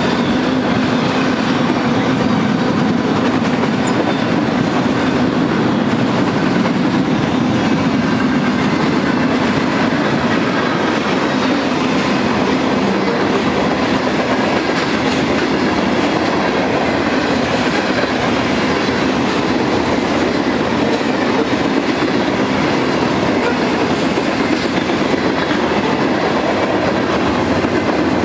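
Freight cars of a mixed manifest train rolling past at close range, steel wheels on rail, the sound steady and unbroken.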